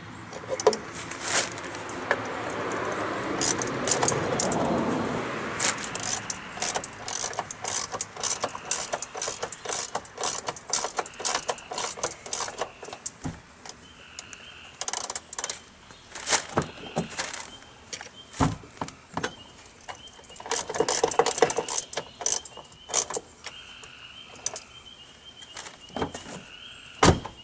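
Hand tools clinking and knocking against the metal of a car door and its hinges during fitting: many irregular sharp clicks with stretches of rustling, and one heavy thump near the end.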